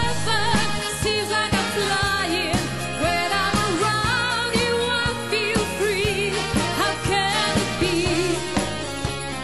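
A woman singing a pop song live with band backing and a steady beat.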